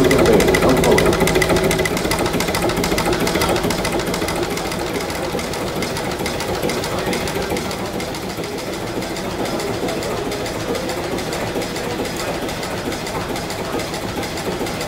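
Historic multi-cylinder diesel engine running steadily, with an even, rapid knocking rhythm from its combustion and open valve gear.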